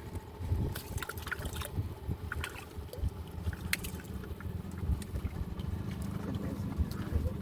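An engine running steadily, a low even drone that deepens slightly about three seconds in, with scattered sharp clicks and taps over it.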